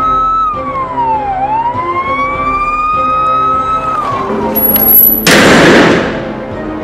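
Emergency-vehicle siren wailing as a title sound effect over background music: its pitch falls, climbs slowly back up, then falls again. About five seconds in, a loud rushing burst of noise lasting about a second cuts in over it.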